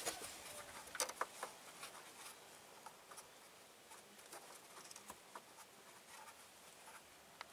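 Mostly quiet, with a few faint, scattered light clicks and taps.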